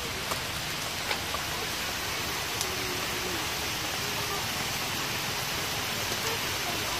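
Small fish sizzling as they fry in oil in a wok, a steady hiss with a few sharp clicks.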